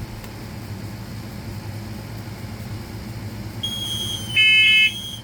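A low steady hum, then the test of a Kidde i4618 smoke alarm sets off the interconnected smoke alarms. A high steady alarm tone starts about three and a half seconds in. About a second before the end comes the first of a louder set of pulsing beeps, the start of a temporal-three evacuation pattern.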